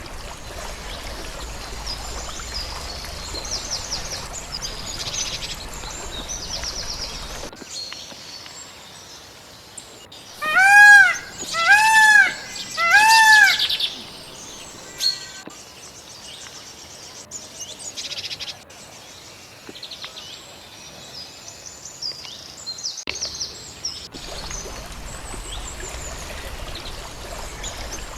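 Several birds chirping and singing in high, quick phrases over a steady background hiss. Partway through come three loud calls in a row, each rising and falling in pitch, and the background changes abruptly twice as the recording switches.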